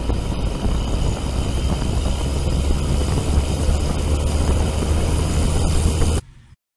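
Yuneec Typhoon Q500+ quadcopter's electric motors and propellers running at a steady speed, a heavy low rumble with a faint steady whine over it. It cuts off suddenly about six seconds in.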